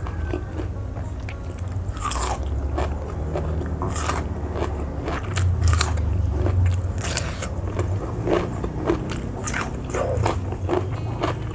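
Person biting and chewing crunchy raw vegetables, a string of irregular crisp crunches and chewing sounds.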